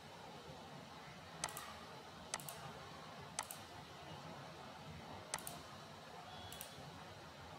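Five sharp computer-mouse clicks, spaced a second or two apart, some in quick pairs, over faint steady room hum.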